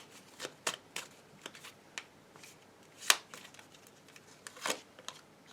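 Tarot cards being handled and shuffled: a scatter of short, sharp card clicks and snaps at irregular intervals, the loudest about three seconds in.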